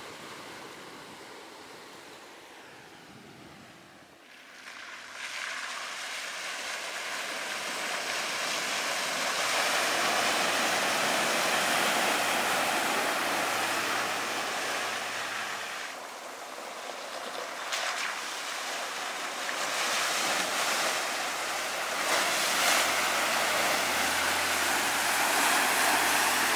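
Rushing noise of a four-wheel-drive truck driving a wet dirt trail. It is quieter at first, swells about five seconds in, dips briefly about two-thirds of the way through, and carries a faint low engine hum in places.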